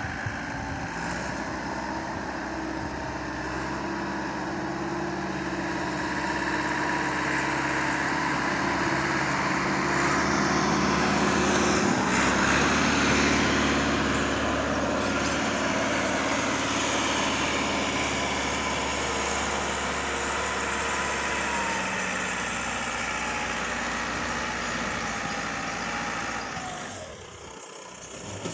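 Massey Ferguson 385 tractor's four-cylinder diesel engine working hard, hauling a loaded gravel trailer up a steep dirt track. The engine grows louder toward the middle, then eases off and drops away near the end.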